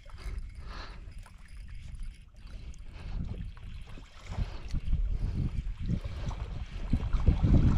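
Wind buffeting the microphone in uneven gusts, growing much louder over the last few seconds.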